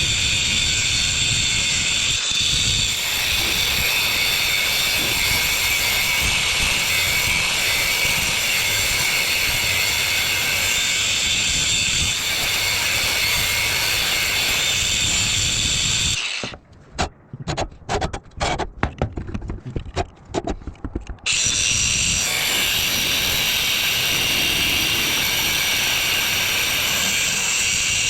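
Power cutting tool running steadily with a high whine, cutting through the metal of a tractor's old belt-driven radiator fan assembly. About two-thirds of the way in it stops for about five seconds, with short on-off bursts, then runs steadily again.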